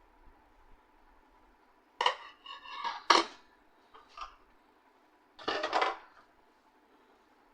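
Hard metal parts clinking and clattering as they are handled, in three short bursts: the loudest about two to three seconds in, a small one near four seconds and another at five and a half seconds.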